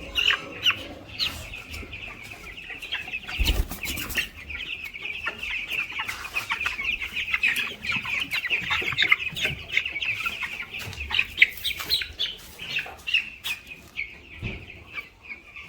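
A flock of 16-day-old broiler chicks peeping continuously in a dense, high-pitched chatter, with scattered short knocks. The birds are restless and hungry, their daily feed having been cut back.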